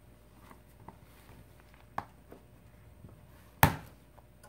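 Plastic pry tool clicking against the edge of an LG G5 smartphone as it is worked around the seam: a few light clicks, then one sharp loud click about three and a half seconds in.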